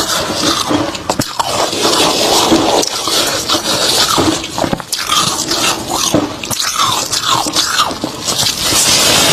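Close-miked biting and chewing of a chunk of freezer frost: a dense, continuous run of soft crunches and crackles.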